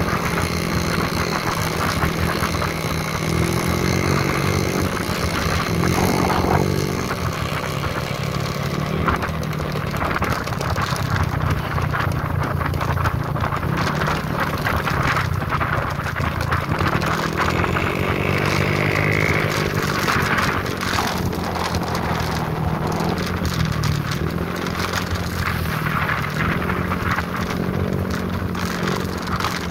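Motorcycle engine running while riding, its note rising and falling several times as the speed changes, with wind buffeting the microphone.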